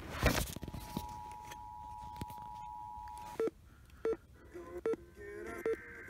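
Electronic tones from an FM radio: a short burst of static at the start, then a steady beep of about two and a half seconds, then four short beeps under a second apart. Near the end the buzzing two-tone data burst of an Emergency Alert System header begins.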